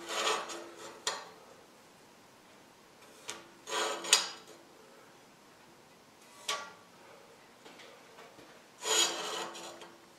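A speed square scraping as it is slid along a mild steel flat bar, with short strokes of a marking pencil, as each hook position is laid out. There are four separate scraping bursts, most of them with a faint ringing tone.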